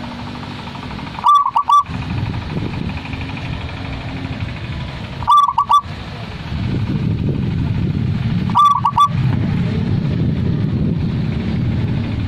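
Zebra dove (perkutut) singing its cooing song: three short phrases of about four quick notes each, a few seconds apart. A steady low rumble runs underneath and gets louder past the middle.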